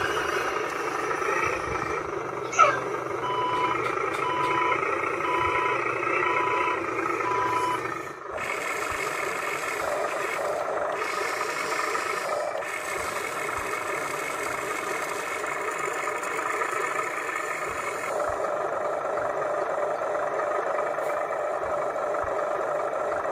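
Truck engine sound running steadily, with a reversing alarm beeping about six times, roughly one beep every 0.8 s, and a brief sharp falling sound about two and a half seconds in. After a break about 8 s in, a different steady engine sound carries on.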